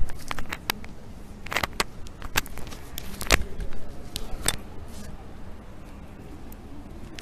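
Handling noise from a clip-on lavalier microphone and its cable being untangled and fitted: a string of sharp clicks and knocks, the loudest about three seconds in, dying down after about five seconds.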